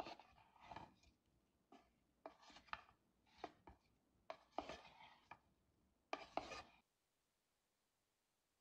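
Wooden spoon tossing olives and cherry tomatoes in a wooden bowl: a run of short, irregular clacks and scrapes that stops suddenly near the end.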